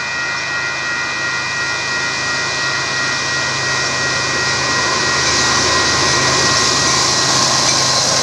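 Union Pacific diesel locomotives leading an intermodal freight train, approaching and passing, the engine and rail noise growing louder about five seconds in. Several steady high tones sound over the train noise.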